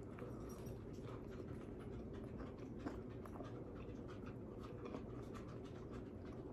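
Faint chewing of a mouthful of fried chicken sandwich, with soft, irregular little crunches and mouth clicks over a low room hum.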